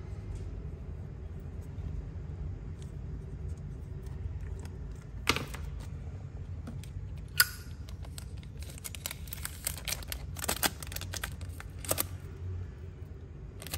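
Zippo lighter being handled: a couple of sharp metallic clicks, one with a short ring, then a quick run of clicks and rattles, over a steady low hum.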